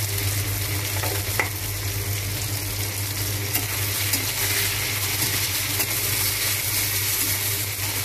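Diced potatoes, capsicum and tomatoes sizzling in hot oil in a steel kadai while a spatula stirs them, a steady hiss with a faint scrape of the spatula on the pan, over a steady low hum.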